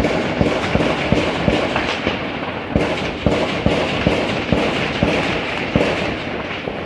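Heavy gunfire: many rapid shots overlapping without a break, one shot after another several times a second.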